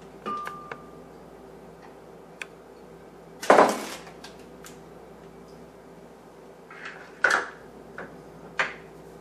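Kitchen handling noises: a few knocks and clicks of a bowl and containers being set down on a countertop by a blender, the loudest about three and a half seconds in and another near seven seconds, over a faint steady hum.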